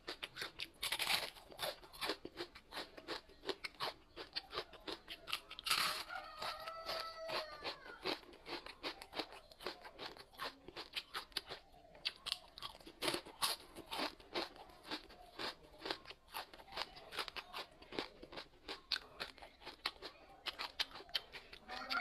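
Close-miked crunchy chewing and biting, a dense run of sharp crackles throughout. A rooster crows about six seconds in.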